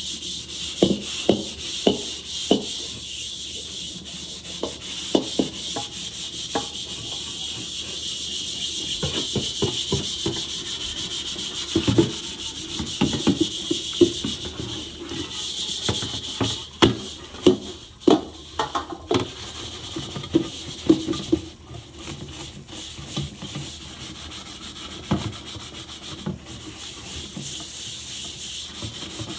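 Gloved hand scrubbing the inside of a rusting steel wok with Bar Keepers Friend cleanser, a steady rasping hiss of scouring to get the rust off. Occasional sharp knocks of the wok against the stainless steel sink run through it.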